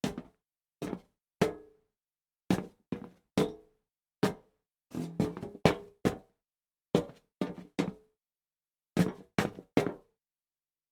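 Feet shuffling on a metal plank: irregular scuffing steps, some in quick groups of two or three, each with a short metallic ring.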